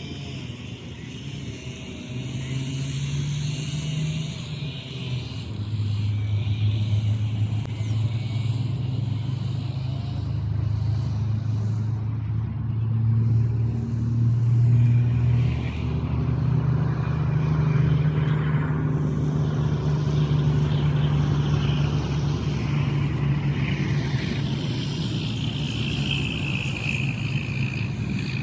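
A motor vehicle engine running steadily, its pitch shifting up and down a few times.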